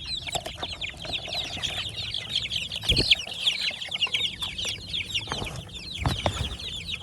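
A crowd of broiler chicks peeping continuously, a dense chorus of short high chirps. A couple of dull thumps come through, about three and six seconds in.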